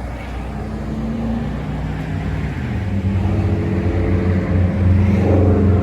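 A motor vehicle's engine running close by, rising in pitch about two and a half seconds in as it accelerates, and getting louder.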